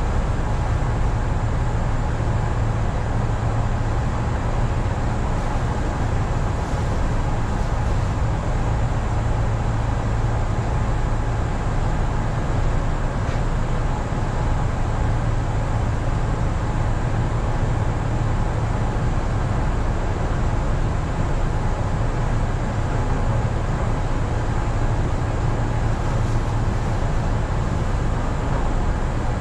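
Steady hum of a stationary Kintetsu electric commuter train, heard from inside the cab: a low drone with faint steady higher tones from its onboard equipment.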